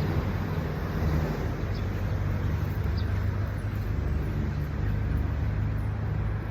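A steady low hum, like an engine or motor running, with no clear changes.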